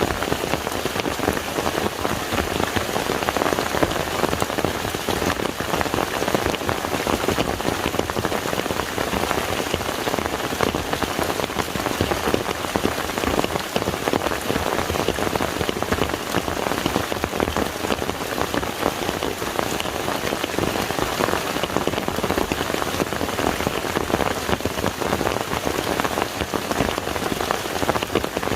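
Steady rain falling on water, a dense patter of many small drops.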